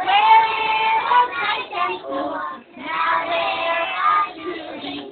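A group of young children singing a song together, in two sung phrases with a brief break about halfway through.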